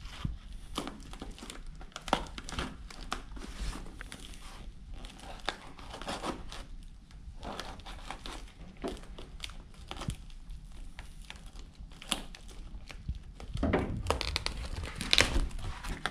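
Small cardboard parcel being opened by hand: irregular crinkling, rustling and tearing as the tape and cardboard are pulled. It gets louder and busier toward the end as the flaps are pulled open.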